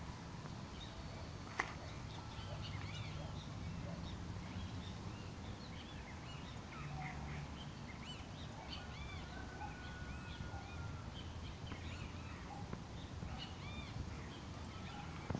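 Many small birds chirping and calling over one another, short repeated chirps throughout, over a low steady rumble, with a single sharp click about a second and a half in.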